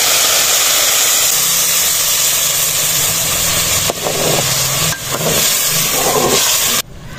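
Wet onion, coriander and yogurt paste sizzling hard as it hits hot ghee in a metal cooking pot, a loud steady hiss, with a ladle knocking against the pot twice as it is stirred. The sizzle cuts off suddenly near the end.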